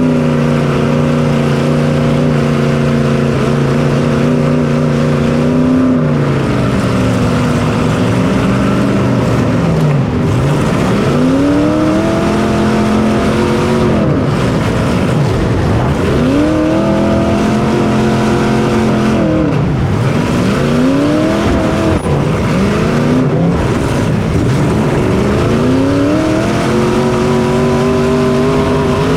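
Onboard sound of a small racing engine, revving up and holding high on each straight, then dropping off into each turn, about every four to five seconds.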